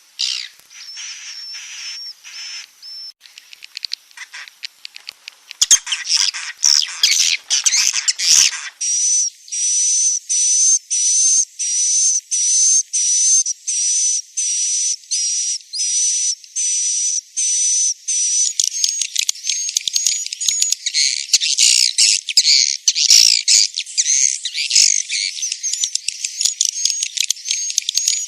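Swiftlet roosting-lure recording: edible-nest swiftlet twittering chirps in rapid, high-pitched pulses. They are sparse and quieter at first, settle into about two pulses a second about a third of the way in, and grow denser and overlapping in the second half. The call is played to coax young swiftlets into settling and roosting in a swiftlet house.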